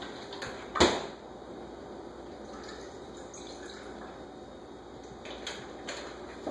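A sharp knock about a second in, then a few lighter clicks near the end, over steady background noise.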